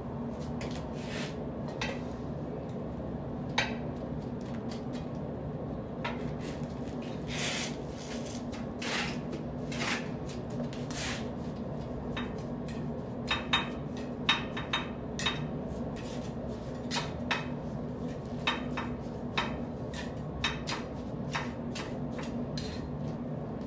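Steel trowel scraping mortar and tapping on glass blocks as the blocks are set in mortar: scattered short scrapes and clicks, busier in the second half. A steady low hum runs underneath.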